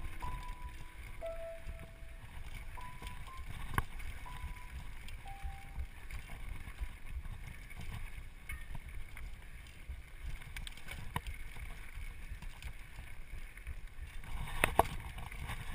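Low rumble and rattle of a mountain bike rolling fast down a rocky dirt singletrack, with wind on the camera microphone and a few sharp knocks from bumps, the louder ones coming near the end.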